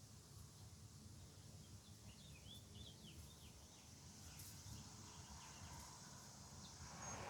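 Faint outdoor background with a low rumble and a run of short, quick bird chirps through the middle. Near the end a broader noise starts to build.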